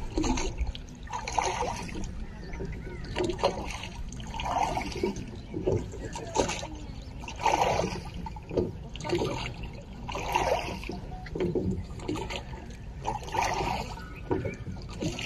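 Water sounds, trickling and splashing in repeated surges about every second, over a steady low rumble.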